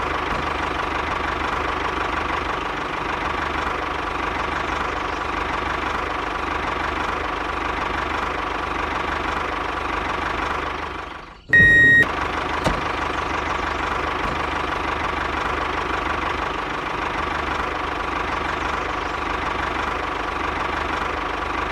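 Steady motor or engine running sound with an even hum. About eleven seconds in it drops out briefly, then a short, loud, high-pitched tone sounds before the running resumes.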